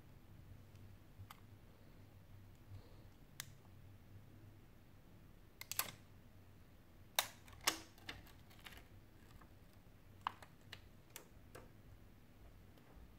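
Scattered sharp clicks and taps of fingers and fingernails handling a Sony Z5 Compact's bare frame with its display removed. About ten clicks, the loudest two close together a little past halfway.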